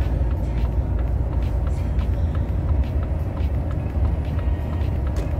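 Semi-truck engine and road noise heard from inside the cab while driving: a steady low rumble.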